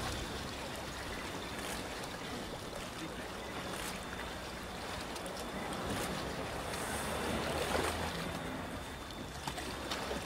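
Lifeboat's engines idling, a low steady hum under a steady hiss of wind and water, with a few faint knocks.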